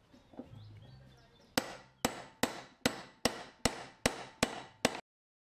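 Hammer blows on a metal tube sleeve resting on a bench vise's anvil, crushing the sleeve onto a weight. About a second and a half in, nine sharp metallic strikes come at a steady two and a half a second, each ringing briefly.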